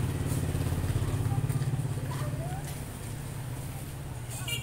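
A motor vehicle's engine passing close by on the street, loudest in the first two seconds, then fading.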